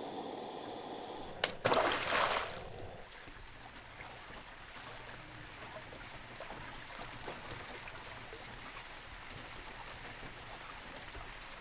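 River water trickling and lapping steadily, with a sharp click and then a short splash about two seconds in.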